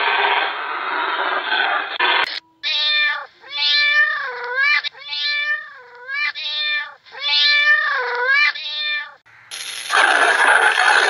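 A cat meowing over and over: a series of about six drawn-out meows, each dipping and rising in pitch. A couple of seconds of hiss-like noise come before them, and more noise starts again near the end.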